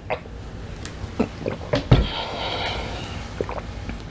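Swallowing gulps from a large plastic water jug, then the jug set down on a wooden tray with a thump about two seconds in.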